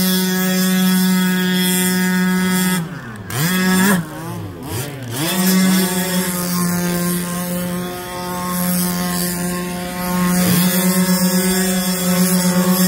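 Small two-stroke petrol engine of a 1/5-scale RC short course truck running at a steady high pitch, the revs dropping and climbing back twice about three to five seconds in as the throttle is let off and reapplied. After a brief dip near the end, the engine note keeps going but its loudness pulses rapidly.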